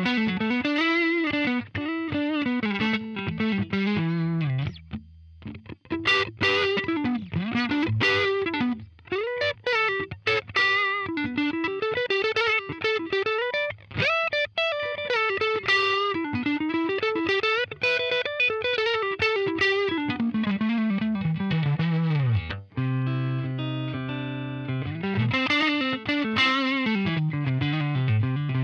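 Fender Stratocaster electric guitar played through a UAFX Dream '65 Reverb amp-emulator pedal: melodic single-note lines of quick notes that climb and fall again and again. There is a brief break about five seconds in, and a held chord near the end.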